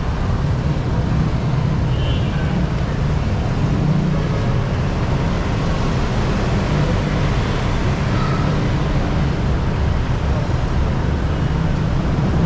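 Steady street traffic noise from cars and motorcycles running along a busy road, with no single vehicle standing out.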